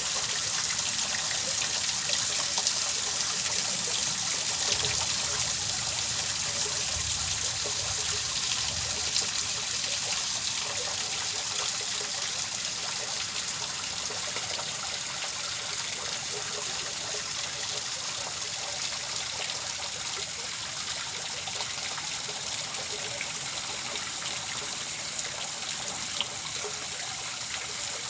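Steady hiss of running, trickling water with fine splashing detail, gradually getting quieter.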